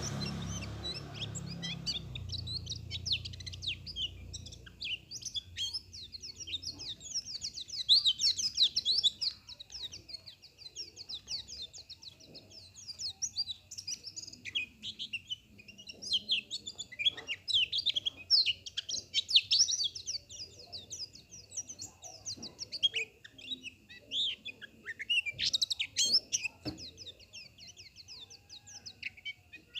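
White-eye (pleci) singing a long, fast stream of high twittering chirps in bursts with short lulls.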